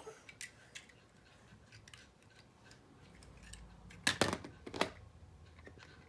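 Toy pieces and toy cars being handled on a LEGO play set: scattered light clicks, then a few sharp clacks of parts knocking together about four seconds in and again near five seconds.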